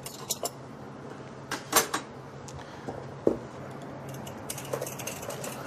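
Scattered clinks and knocks as a block of ice is taken out of a lidded wooden tub and handled on a bar counter, the loudest a little under two seconds in, followed by a run of light ticks near the end.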